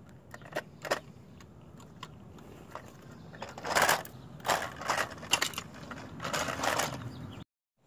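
Toy front-loader garbage truck pushed by hand over rough concrete: a few sharp plastic clicks in the first second, then three loud spells of its plastic wheels grinding and rattling over the grit as it passes close by. The sound cuts off abruptly near the end.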